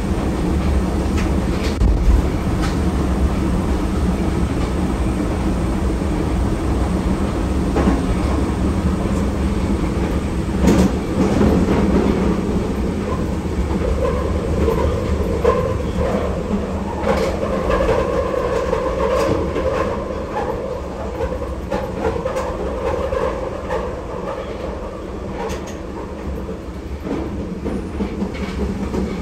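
Berlin U-Bahn F-type train running on the U8, heard from the driver's cab: a steady rumble of wheels on rails with scattered clacks over rail joints. About halfway through a humming note joins in, and the noise eases off toward the end.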